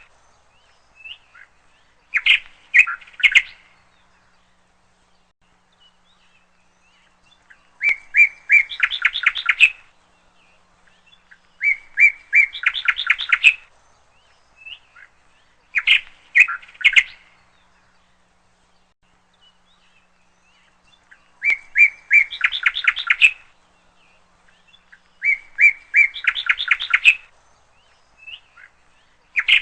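A songbird singing the same short phrase of rapid, high notes over and over, about every four seconds.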